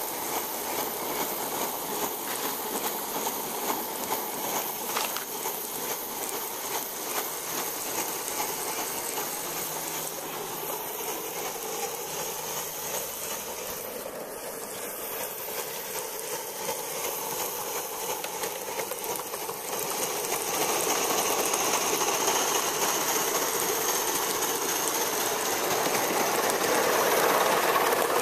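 Gauge 1 live-steam model locomotives running on a garden track, with steam hissing steadily. The sound grows louder about two-thirds of the way in as a train runs past close by.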